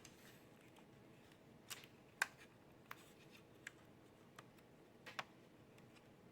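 Small plastic clicks and taps from handling an instrument cluster and its new LCD screen: about seven short, sharp clicks scattered over a quiet room, the loudest about two seconds in.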